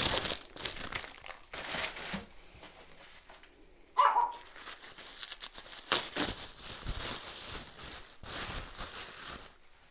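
Paper bags and tissue wrapping rustling and crinkling as groceries are handled and unwrapped, with one short falling tone about four seconds in.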